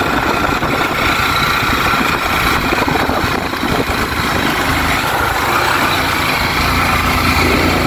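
Motorcycle running on the move, mixed with steady wind rushing over the microphone.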